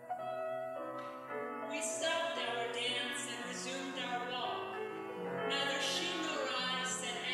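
Classical soprano singing over piano accompaniment, with the voice entering about two seconds in. Recorded on an old cassette tape, so the sound is wobbly and uneven.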